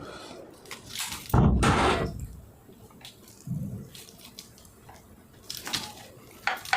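Close-miked mouth sounds of eating: wet chewing and smacking, with one louder wet sound about a second and a half in and a few sharp clicks near the end.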